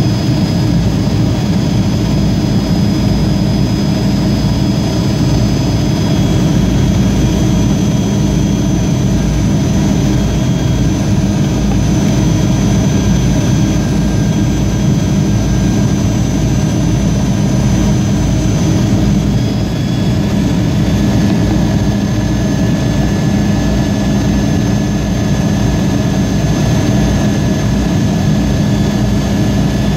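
Yak-42D's rear-mounted D-36 turbofan engines heard from inside the cabin beside the engine: a harsh, loud, steady drone with thin high-pitched whines on top that shift to new pitches about six seconds and about twenty seconds in.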